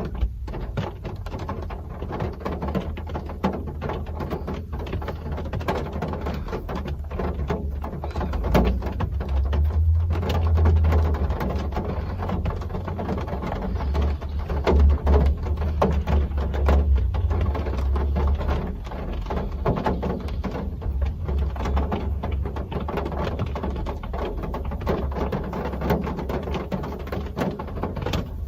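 Real rain falling steadily, a dense stream of small drop impacts over an even hiss, with a strong low rumble underneath.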